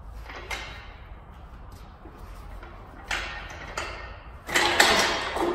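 Breaker bar on a 2JZ engine's crank pulley bolt being heaved on, with a few sharp metallic knocks and creaks from the tool and engine stand. About four and a half seconds in comes the loudest sound, a harsh metallic crack with ringing, as something gives under the strain.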